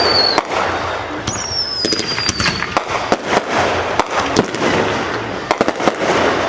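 Fireworks display: repeated sharp bangs and crackling reports, with a high whistling shell sliding slightly down in pitch for about a second and a half, starting about a second in.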